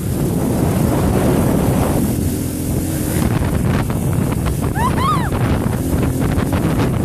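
Dirt bike riding along a trail with its engine running, heavily masked by wind buffeting the microphone. About five seconds in there is a brief high call that rises and falls twice.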